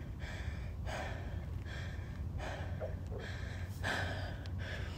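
A woman breathing hard, soft airy breaths coming about once a second, winded after the timed workout of the challenge.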